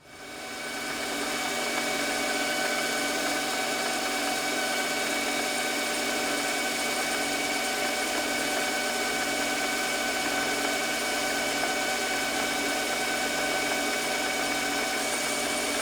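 Metal lathe starting up and running at steady speed with a constant whine while it takes a boring cut in brass, then spinning down near the end.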